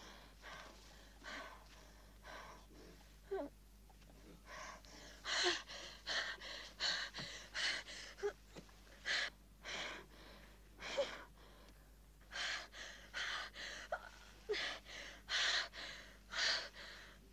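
A woman in labour gasping and panting hard, quick breathy gasps with a few short moaning cries, coming in clusters with brief pauses between.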